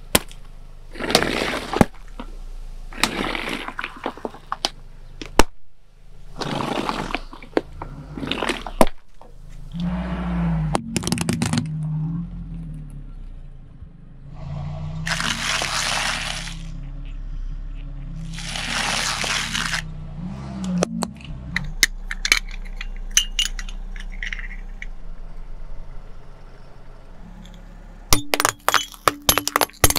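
Several hissing, spraying bursts as balloons on soda bottles and tubs of paint burst under a car tyre. Near the end comes a quick string of sharp cracks and clinks as a row of coloured saucers shatters under the tyre.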